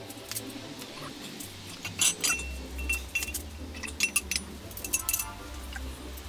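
Scattered metallic clinks of nuts and small fittings being worked off a motorcycle engine by hand, over background music.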